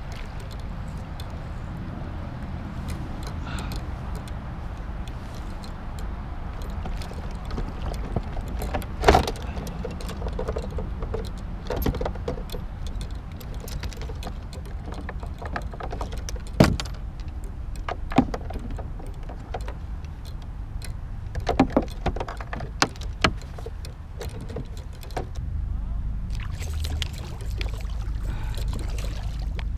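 A large bowfin being fought and landed beside a kayak: water splashing and sloshing against the hull over a steady low rumble, broken by a handful of sharp knocks and rattles, the loudest about nine seconds in and at the middle, with a cluster a little later.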